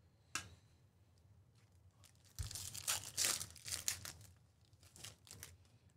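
A Select basketball card pack's wrapper being torn open, ripping and crinkling for about two seconds from a little past two seconds in. A sharp click comes first, and a few light taps near the end.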